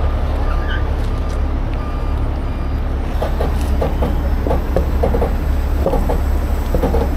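Diesel engine of a heavy rotator tow truck running at a steady idle, a low continuous rumble. A string of short, sharper sounds comes in over it in the second half.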